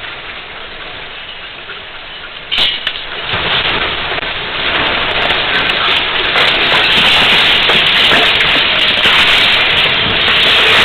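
Earthquake shaking picked up by a security camera's microphone. A knock about two and a half seconds in is followed by a dense rumbling noise that builds over the next few seconds and then stays loud as the ground and building shake.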